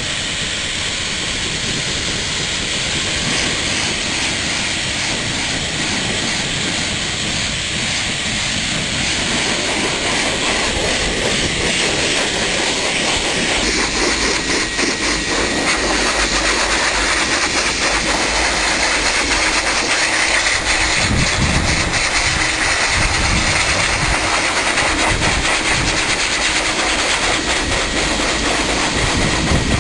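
High-velocity dog dryer (blaster) running: a loud, steady rush of air with a thin whine near 2 kHz. About halfway through the hiss turns brighter, and gusty low rumbles come and go in the last third as the airflow shifts.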